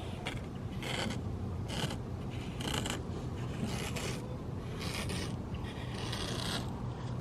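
A series of short scraping or rubbing strokes, roughly one a second, over a steady low hum.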